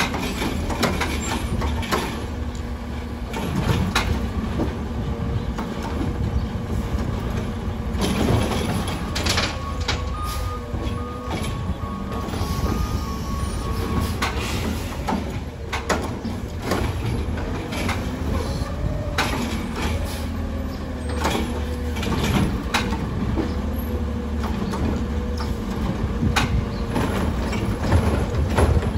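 Heil Rapid Rail automated side-loader garbage truck on a CCC chassis running at the curb while its hydraulic arm works a trash cart: a steady engine rumble with a whine that rises and falls repeatedly, and frequent clanks and knocks of the arm and cart. A few seconds of faint beeping come near the middle.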